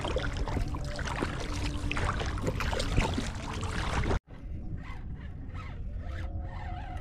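Kayak paddle blades dipping and splashing in choppy sea water, with water slapping against the hull. About four seconds in it cuts off abruptly, and a much quieter stretch follows with faint ticks and a weak steady tone.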